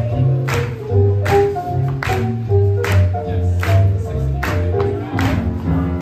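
Upbeat swing jazz music for Lindy hop dancing, with a walking bass line and a sharp beat about every three-quarters of a second.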